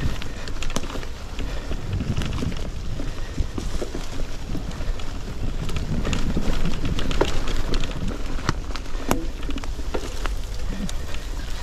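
Mountain bike riding over a leaf-covered dirt trail: tyres crunching and rolling on leaves and dirt, the bike rattling and clicking over bumps, over a steady low rumble.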